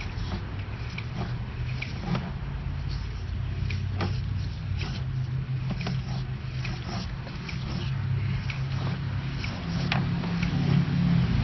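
A low steady hum, with scattered light clicks and knocks from a sewer inspection camera's push cable being fed down the line. The hum gets a little louder near the end.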